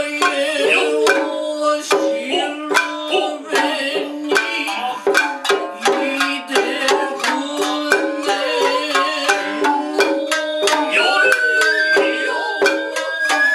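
Japanese nagauta ensemble playing: shamisen plucking and sharp drum strokes from taiko and tsuzumi hand drums under a held sung line. About eleven seconds in, a high bamboo-flute (shinobue) line comes in over the ensemble.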